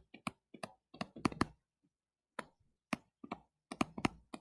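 Digital pen tip tapping and clicking against the writing surface while words are handwritten: irregular sharp clicks, several a second, with a pause of under a second about halfway through.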